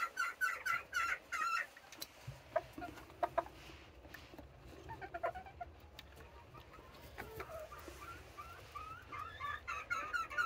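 Serama bantam hens clucking: a quick run of repeated calls in the first second and a half, a few scattered short calls in the middle, then a busier stream of clucking building up over the last two seconds.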